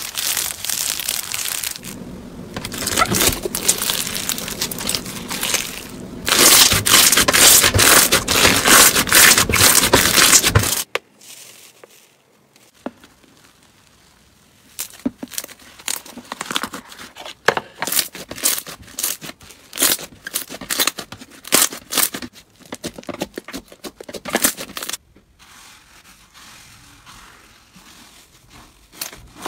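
Slime being squeezed, stretched and kneaded by hand, making sticky crackling and crunching sounds. The crackling is dense and loud for the first third, cuts off suddenly, and then comes back as quieter scattered pops and crackles.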